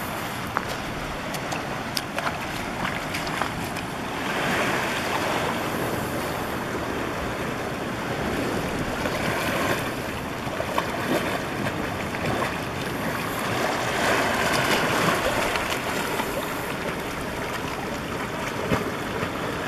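Small ocean waves washing over and around shore rocks, swelling louder a few times, with water splashing as a snorkel diver wades in and swims out on a float tube, kicking his fins.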